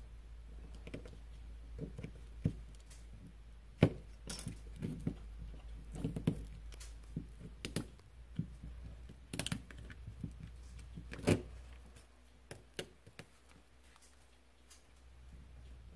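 Irregular small clicks, taps and knocks of tools and phone parts being handled on a workbench, two of them sharper than the rest. A low steady hum runs underneath and drops away about three-quarters of the way through.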